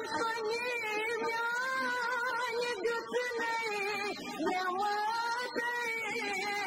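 A woman singing a Kashmiri song, her voice holding long wavering notes that slide between pitches, with light instrumental accompaniment.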